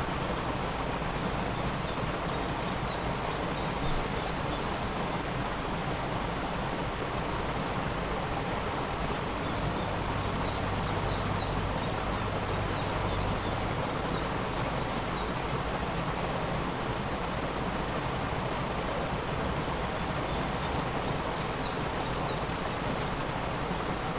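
Waterfall rushing steadily, with a small bird singing over it three times, each song a quick series of short, high, falling notes: about two seconds in, again around ten seconds in, and near the end.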